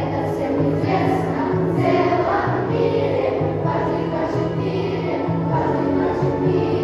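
Children's choir singing a song over an instrumental backing track, with a girl's voice leading on a microphone.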